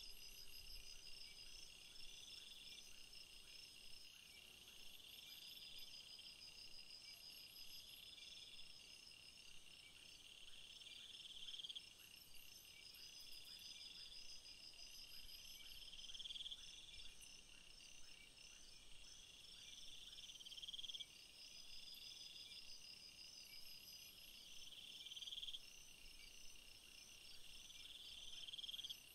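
Faint insects chirping in a chorus: a high trill that swells for about a second and stops, repeating roughly every two seconds, over a steady higher-pitched pulsing buzz.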